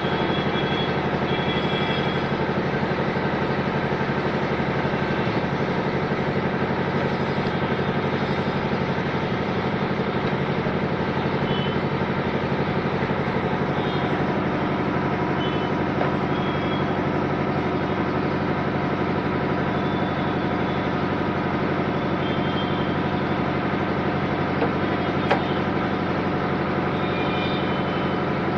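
Electric air blower running steadily, blowing dust out of a note counting machine during cleaning.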